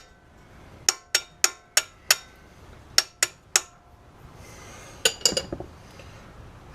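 Hammer blows on a steel 3/4-inch-drive socket extension used as a drift to punch parts out. There are five ringing metallic strikes, then three more, then a quick cluster of lighter taps about five seconds in.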